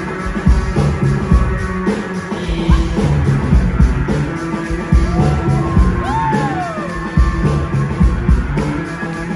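Live rock band playing: electric guitar lead over bass and a steady drum beat.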